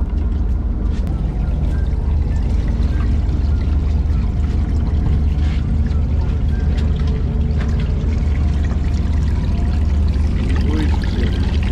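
Water running from a deck hose pushed into the mouth of a freshly caught longtooth grouper, a steady pouring flow flushing through the fish, over a steady low hum.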